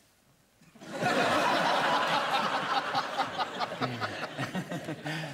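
Near silence for about a second, then a studio audience laughing heartily, the laughter holding on and easing a little near the end.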